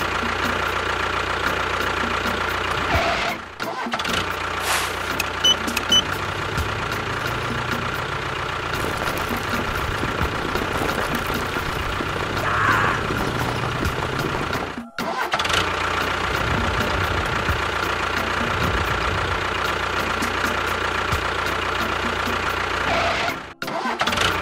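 A steady engine sound, running evenly throughout, with three short breaks where it cuts out and comes straight back.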